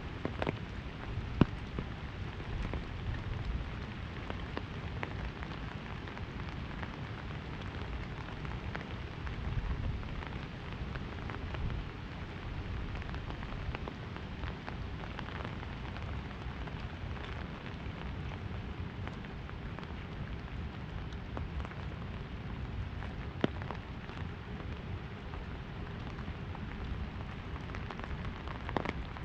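Rain falling on an umbrella held overhead: a steady hiss made of many small drop clicks, with a few sharper, louder drops.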